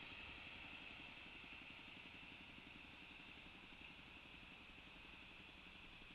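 Near silence: a faint steady hiss with a low rumble of outdoor background noise.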